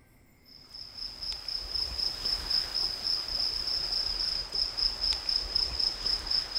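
Crickets trilling steadily: one high, even trill with a slight pulse that comes in about half a second in.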